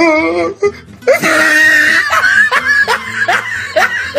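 A person laughing loudly. A wavering drawn-out sound at first, then a loud burst, then short rising laughs about twice a second.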